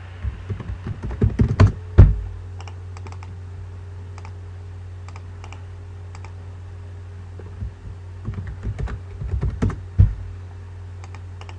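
Tapping and clicking on a laptop's keys and buttons, picked up by its built-in microphone: two bursts of clicks, each ending in a heavier thump about two seconds in and again near ten seconds, over a steady low hum.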